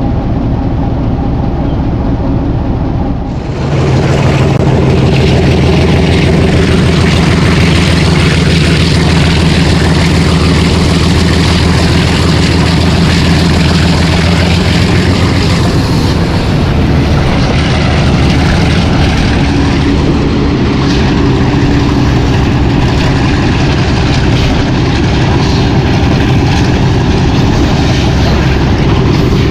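Hitachi PHA-20 diesel locomotive engine running with a deep, steady engine note. About three seconds in it jumps sharply louder and stays loud, with a change in its pitch just past halfway.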